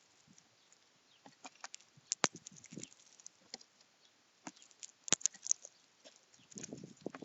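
Irregular sharp clicks and taps of a hawfinch pecking and cracking seeds at a bird feeder, with a brief soft rustle near the end.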